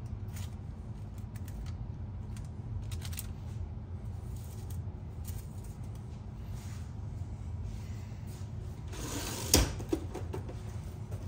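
Light rustling and faint clicks of paper specimen envelopes being laid into a ceramic dish, over a steady low hum. Near the end comes a louder rustle with a sharp click.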